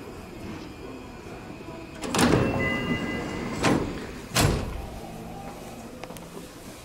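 Sliding passenger doors of a Seibu 40000 series commuter train closing: a rush of noise with a brief tone about two seconds in, then the doors thud shut near the middle. A steady low hum from the train follows.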